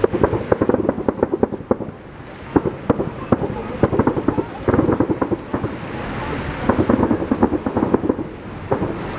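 Fireworks bursting in quick succession: dense clusters of sharp bangs and crackles, one run after another.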